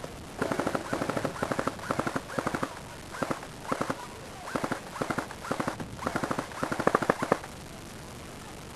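Airsoft gun firing full-auto, about a dozen short bursts of rapid clicking shots over some seven seconds.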